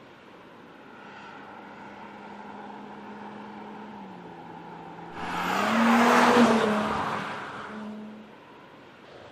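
2017 Audi S5 Coupe's turbocharged 3.0-litre V6 running steadily, heard from inside the cabin while driving. About five seconds in, a loud rushing sound swells and fades over roughly three seconds, and the engine note climbs slightly under it.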